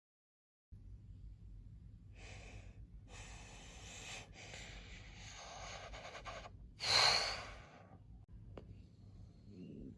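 A person's breathy, hissing mouth noises, rising to a loud, sharp gasp about seven seconds in, with a single click shortly after.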